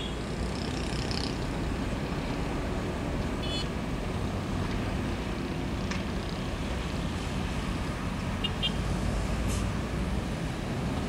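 Roadside traffic: a Hino 500 diesel truck pulling a trailer runs by slowly with motorbikes passing alongside, a steady engine-and-tyre noise. A couple of brief high chirps sound about three and a half and eight and a half seconds in.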